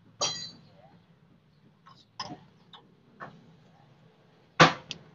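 Irregular sharp metallic clanks and knocks of hand tools against the steel of a truck's transmission and chassis, about half a dozen in all; the first rings briefly and the loudest comes about four and a half seconds in.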